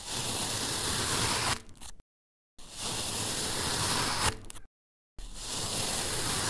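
Large knife blade slicing through a soft orange block, heard as three separate cuts, each a gritty crackling hiss lasting over a second, with dead silence between them.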